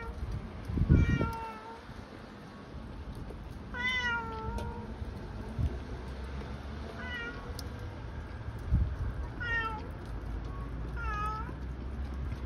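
A cat meowing repeatedly: about six meows, roughly every two seconds, the one about four seconds in the longest. Brief low rumbling thumps come about a second in and again near nine seconds.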